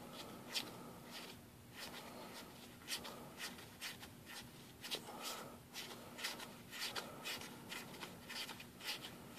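Trading cards slid one past another as a fanned hand is flipped through: soft, irregular flicks and rubs of card stock, a few each second, over a faint steady hum.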